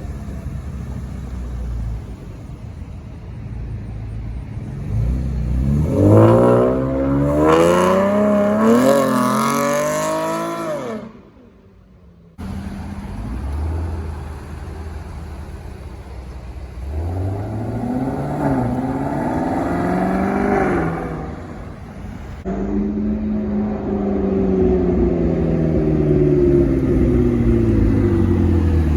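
Muscle car V8 engines revving hard and accelerating, their pitch climbing in two loud sweeps. The first cuts off suddenly. Near the end a long falling engine note follows as a car eases off or passes.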